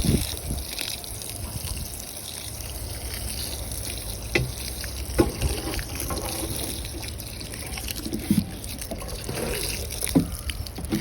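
Water trickling and splashing steadily onto freshly sown soil as a bed is watered, with a few light knocks.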